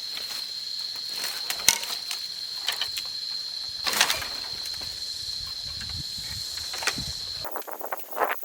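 Insects droning on one steady high pitch, with a few sharp knocks and rustles of work in the undergrowth. The drone stops abruptly about seven and a half seconds in, giving way to denser rustling.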